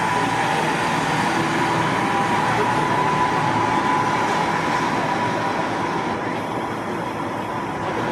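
Buses moving along a city street in traffic: a steady road noise with a thin, steady high-pitched whine over it, easing off a little near the end.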